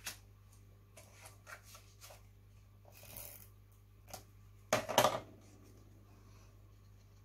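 Paper and card being handled: light rustles and taps, then a short, louder rasping burst about five seconds in as a tape runner lays double-sided tape along the back of a paper cut-out.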